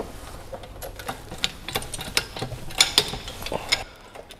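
Irregular metallic clicks and knocks of hand tools and metal parts in a car's engine bay during engine-mount fitting, thinning out near the end.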